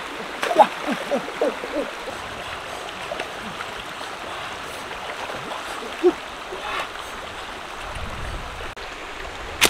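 Shallow rocky stream running over stones, a steady rush with gurgles and small splashes, most of them in the first couple of seconds and one more about six seconds in.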